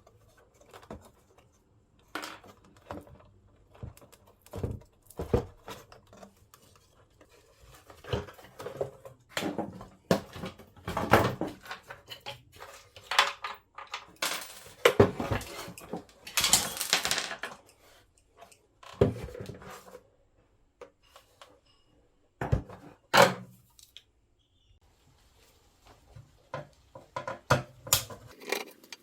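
Parts of a jobsite radio being handled and worked on: irregular clicks, knocks and light metallic clatter, with a few louder knocks in the middle stretch and a short quiet spell before the end.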